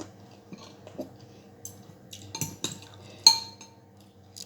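Metal cutlery clinking against dishes during a meal: a few sharp clinks in the second half, the loudest and most ringing about three seconds in.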